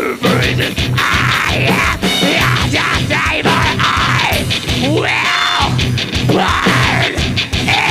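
Heavy metal band playing live, loud: distorted guitars, bass and drums, with pitches sweeping up and down over the top.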